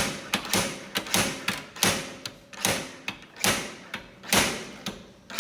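Slide hammer dent puller working a pin welded onto the caravan's aluminium panel: a loud, sharp metallic clack a little more than once a second, with lighter clicks between, as the dent is pulled out.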